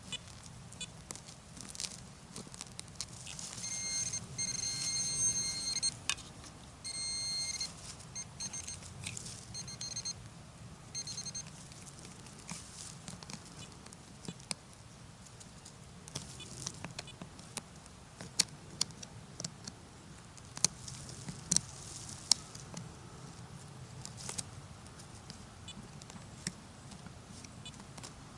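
Garrett Apex metal detector giving its high-pitched electronic target tone, sounding for about three seconds and then again in shorter bursts, signalling metal in the ground. Scattered sharp clicks and crackles go on throughout.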